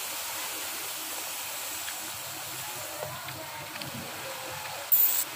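Uncooked rice grains pouring in a steady stream onto a heap of rice, a continuous hiss. A brief, sharp, louder sound near the end.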